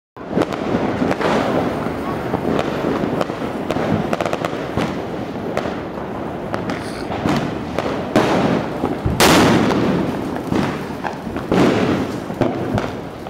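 Fireworks crackling and popping, with many sharp cracks. About nine seconds in, a firework rocket (cuete) standing on the ground ignites with a loud rushing hiss and sprays sparks instead of launching: it fails to shoot upward.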